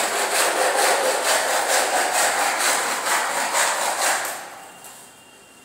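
Fast, rhythmic back-and-forth scraping as a hard floor surface is rubbed down by hand, about three strokes a second, stopping about four seconds in.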